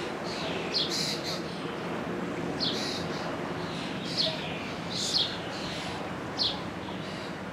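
A songbird calling over and over, short sharp high notes that slide downward, about five times, some doubled, over a low steady hum.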